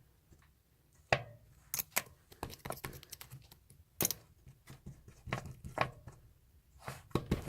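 Chewy slime being handled, stretched and pressed by hand: irregular sticky pops, clicks and crackles that start about a second in.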